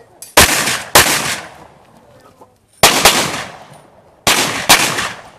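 Five pistol shots fired on a shooting stage: two half a second apart about a second in, one on its own midway, and two more close together near the end, each ending in a fading echo.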